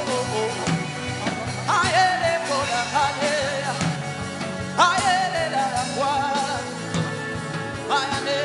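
Worship music with a sung voice: drawn-out phrases with a wavering vibrato start about every three seconds over a steady low beat.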